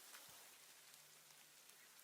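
Near silence: a faint even hiss with a few soft ticks and a faint low hum.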